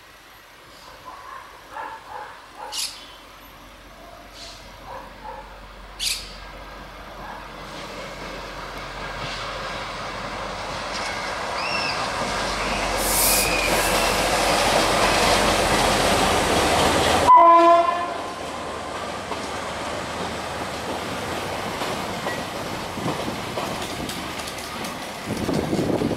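Passenger train approaching and running past, its rumble growing louder for about ten seconds, with high wheel squeal as it nears. At its loudest a short horn note sounds and the level drops at once, and then the cars keep rolling by with a steadier, quieter rumble.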